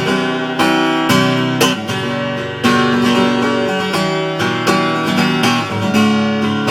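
Acoustic guitar strumming chords in a steady rhythm, with strokes about twice a second and no singing.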